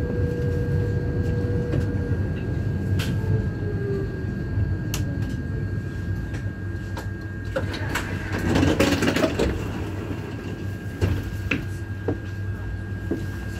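Tram running: a steady low rumble with an electric motor whine that falls in pitch a few seconds in, a few sharp clicks, and a louder noisy stretch about eight to nine seconds in.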